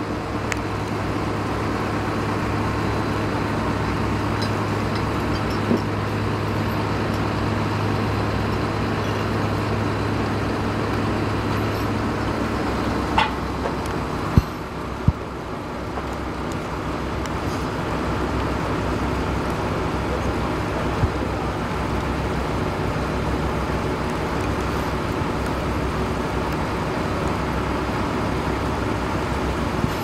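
Heavy diesel engines running steadily at idle, with a low hum that fades out about halfway through and a few short knocks.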